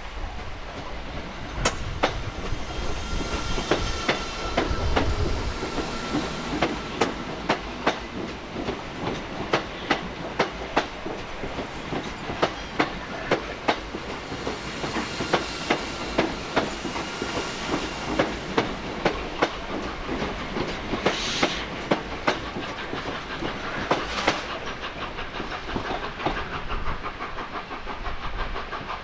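A train rolling through, its wheels clicking over rail joints in repeated groups of clacks over a steady rumble. Two short hisses come about two-thirds of the way through.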